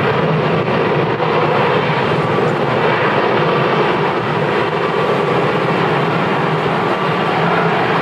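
Airbus A330-900's Rolls-Royce Trent 7000 jet engines running loud and steady, with a faint steady whine over the roar.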